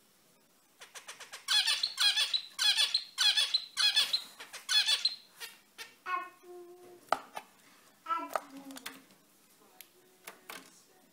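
Male zebra finch calling: a quick run of about six loud, squeaky repeated calls in the first half, then softer, lower notes and a few clicks.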